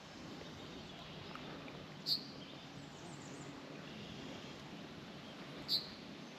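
Steady low murmur of river water with faint bird chirps, broken by two short, sharp high-pitched chips, one about two seconds in and one near the end.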